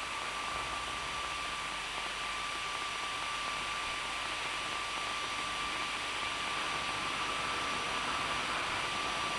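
Steady hiss with a thin, unchanging high tone running through it: the noise floor of an old videotape soundtrack, with no other sound.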